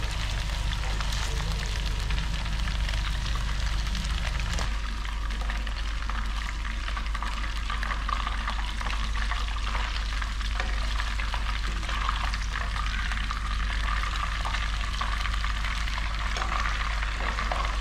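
Hot oil in a wok crackling and sizzling steadily around pieces of fried fish as they are lifted out, with a steady low hum underneath.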